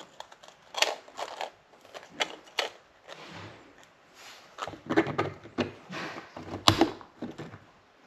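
Irregular clicks and knocks of a plastic thermal detonator prop and its stand being handled, with the sharpest knock about two-thirds of the way through.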